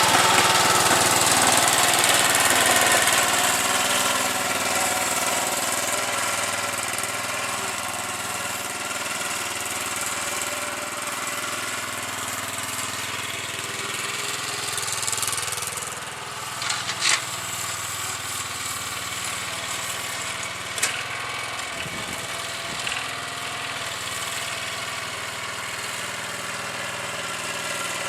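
Snapper riding lawnmower engine running steadily while plowing snow, louder for the first few seconds and then settling lower. A few short sharp knocks sound about two-thirds of the way through.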